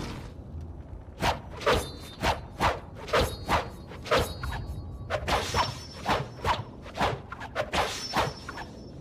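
Martial-arts fight sound effects: a quick run of whoosh-and-hit strikes, about seventeen in two bursts with a short pause about halfway through.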